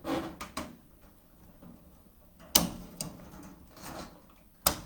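Cutters snipping through bird-cage mesh: two sharp snaps about two seconds apart, with lighter clicks and handling of the mesh near the start.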